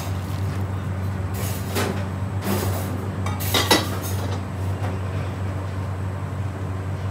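Water poured from a metal jug into an aluminium frying pan of lentils, with a metal ladle knocking and clinking against the pan: a few short splashy strokes, the loudest knock about three and a half seconds in, over a steady low hum.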